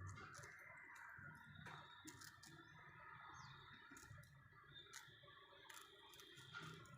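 Budgerigars heard faintly: scattered small clicks and scratches, with a few faint high chirps.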